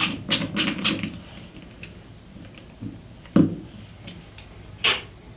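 Screwdriver working the cover screw of a plastic British 13 A mains plug: a quick run of about four sharp clicks in the first second, then two single knocks later on as the plug is handled.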